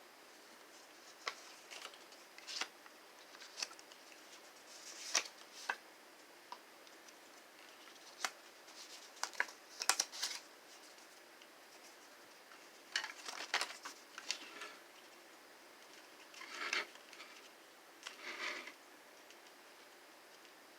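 Scattered light clicks, taps and short paper rustles from handling a small paper-and-plastic toy game's sheets and parts.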